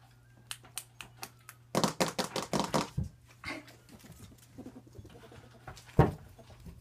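Ferrets dooking while they play: bursts of rapid, clucking chuckles, densest about two seconds in, with a single loud thump near the end.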